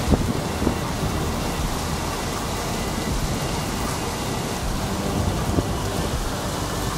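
Torrential rain driven by strong wind: a steady, dense rush of rain with low rumbling underneath. A few brief louder bumps stand out, one just after the start and one about five and a half seconds in.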